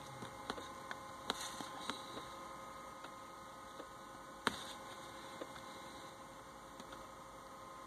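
Low, steady electrical hum with a few sharp clicks, likely mouse clicks on the laptop; the loudest click comes about four and a half seconds in.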